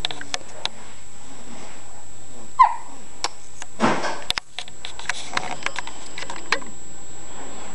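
Newborn baby hiccupping: scattered sharp little clicks and a short hic about four seconds in, with a brief squeak about two and a half seconds in, over a steady background hiss.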